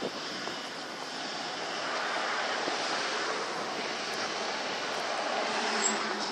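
Steady rush of a car being driven at speed: road and wind noise, swelling slightly about two seconds in.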